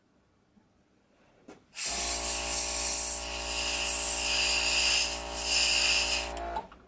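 Dual-action airbrush spraying paint: a loud, steady hiss of air over a steady motor hum. It starts about two seconds in and cuts off shortly before the end.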